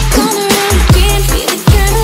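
Electronic music track: a heavy bass line under regular kick-drum hits, with a held synth melody above.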